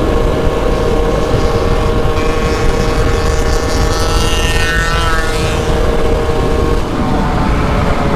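Small two-stroke moped engine running steadily at speed, with wind and road rumble. Midway a second, higher engine whine swells and drops in pitch, and the engine note shifts near the end.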